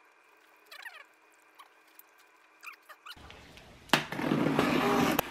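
A box cutter slicing through the packing tape on a cardboard box. It starts with a sharp click near the end, then a steady scraping rasp for about a second. Before it there are a few faint, high, falling chirps.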